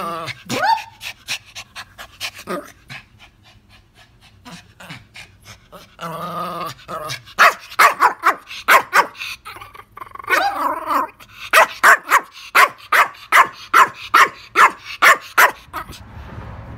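Pomeranian barking right at the microphone: a quick run of sharp, yappy barks at the start and quieter ones through the middle. About halfway through comes a loud, even string of barks, two to three a second.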